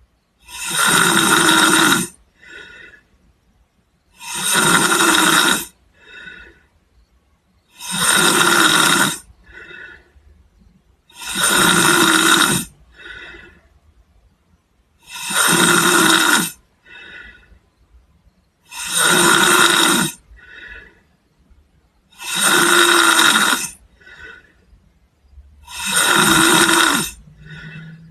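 A sleeping person snoring: eight loud snores in a steady rhythm about every three and a half seconds, each lasting over a second and followed by a shorter, softer breath.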